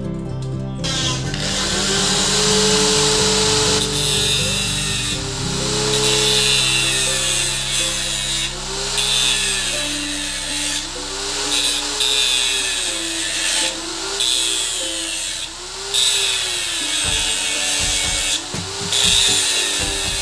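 Electric handheld power tool working the motorcycle's metal exhaust mount. Its motor pitch rises and sags again every second or two as it bites and eases off, with several short let-ups. Quieter background music plays under it.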